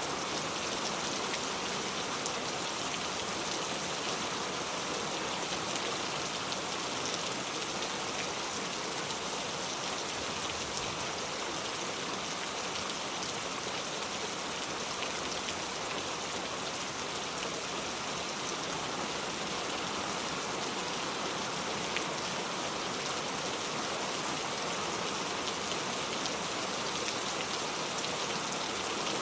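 Steady rain falling, an even hiss with scattered drop ticks, unchanging throughout.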